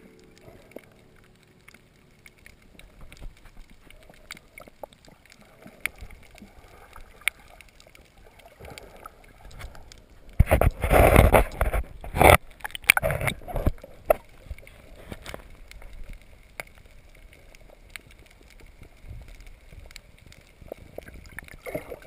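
Water heard underwater through a camera housing: faint gurgling with scattered small clicks, then about ten seconds in a loud burst of splashing and sloshing that lasts about two seconds, followed by quieter intermittent sloshing.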